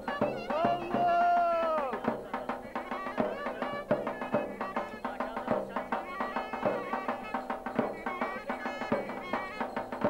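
Traditional Turkish wedding folk music: a davul drum beating a steady rhythm under a wind instrument playing the melody. A long held note that wavers and bends down stands out near the start.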